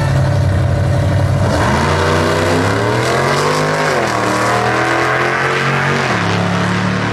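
Two drag cars, a supercharged Chevy II gasser and a Chevelle, launching off the line: engines held at steady revs, then about a second and a half in they pull away, rising in pitch, with a sharp drop at a gear change about four seconds in and another about six seconds in.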